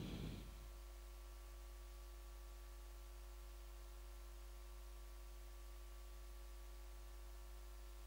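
Near silence: room tone with a steady electrical hum and faint hiss.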